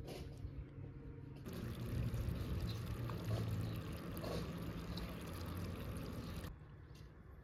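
Liquid pouring steadily for about five seconds, starting about a second and a half in and stopping abruptly.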